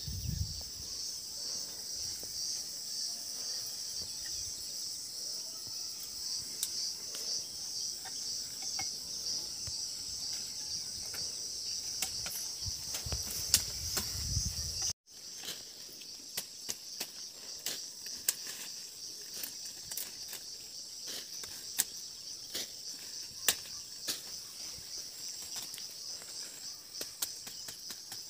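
A steady, shrill chorus of insects holds a high, slightly pulsing drone throughout, with scattered sharp clicks over it. The sound drops out for an instant about halfway through and comes back a little quieter.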